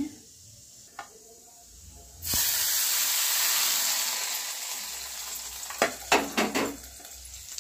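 Hot tempering oil with mustard seeds, urad dal and curry leaves poured into idli batter: a sudden loud sizzle about two seconds in that slowly fades away.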